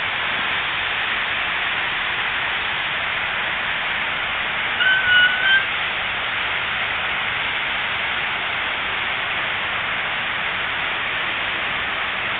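Water from the Unisphere pool's tall fountain jets splashing: a steady, even hiss of falling spray. A brief high whistle-like tone sounds about five seconds in.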